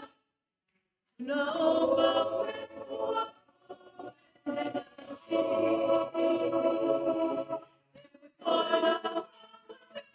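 Mixed church choir of women and men singing unaccompanied, in three phrases with short breaks: the first starts about a second in, the longest runs from about four and a half to nearly eight seconds in, and a short one comes near the end.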